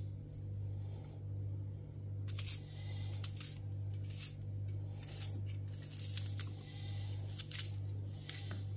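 Kitchen knife slicing through an onion held in the hand: a string of short, crisp cuts at uneven intervals, over a steady low hum.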